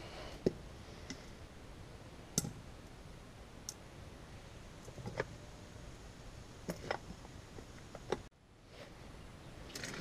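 Scattered sharp clicks and knocks of metal motor parts being handled and fitted together: the rotor, shell and end plate of a disassembled ECM condenser fan motor, worked by gloved hands.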